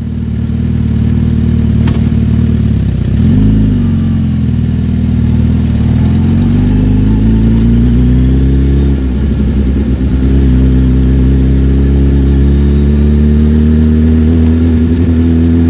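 Suzuki Hayabusa's inline-four engine running, with a short rev about three seconds in. It then pulls away, its pitch rising steadily until it drops for a gear change about nine seconds in, and climbs again.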